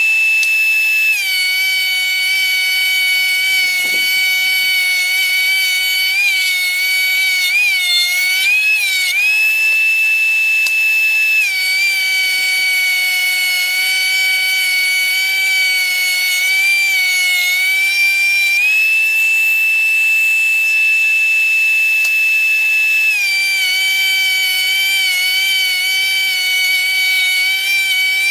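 DeWalt 13-inch thickness planer running while it feeds a white oak board, its motor giving a loud high-pitched whine. The pitch sags several times as the cutterhead bites harder into the wood, then recovers.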